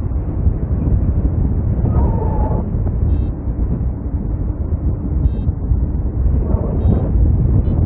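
Wind rushing over the microphone in paraglider flight, loud and steady, with a few short high beeps about every two seconds.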